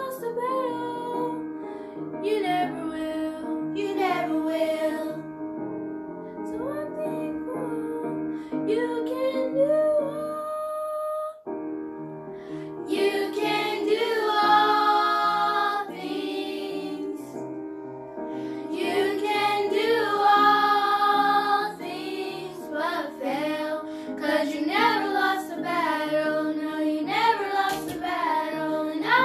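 Young girls singing a hymn together over an instrumental backing, with a brief break in the music about eleven seconds in.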